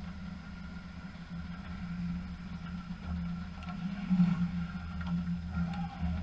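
Steady low hum of ice rink machinery, with a few faint knocks and clicks.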